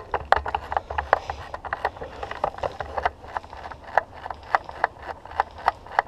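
Footsteps and rattling gear of someone walking: sharp clicks and knocks, about two to three a second, over a low rumble.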